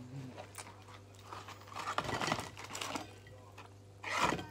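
Paper and cardboard fast-food packaging crinkling as it is handled, in a bout of rustling about two seconds in and a louder, shorter one near the end.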